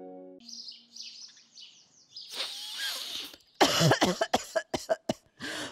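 An elderly woman coughing hard in a rapid series of hacking coughs, which begins about halfway through after a breathy rasp; faint bird chirps come before it.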